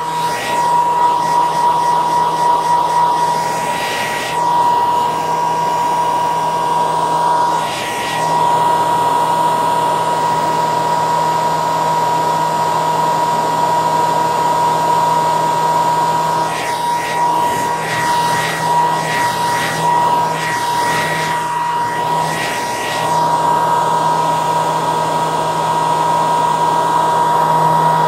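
Handheld hair dryer running steadily: a rush of blowing air over a steady, high motor whine. The airflow flutters briefly a few times.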